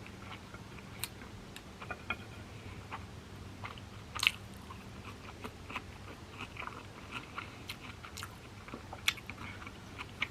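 A person chewing sushi close to the microphone: soft, wet mouth sounds with scattered small clicks, and two sharper clicks about four and nine seconds in, over a low steady hum.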